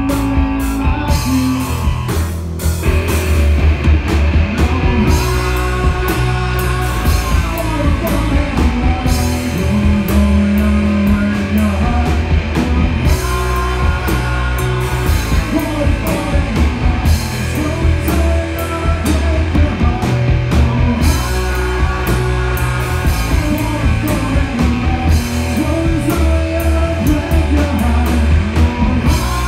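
Rock band playing live: a drum kit, electric guitar and a man singing.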